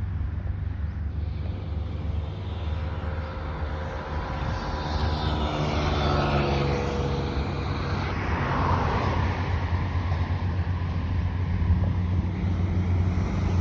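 An engine passes by, growing louder and then falling in pitch as it goes, over a steady low rumble.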